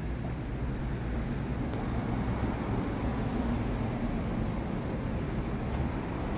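Steady city street traffic: a low rumble and hiss of passing cars.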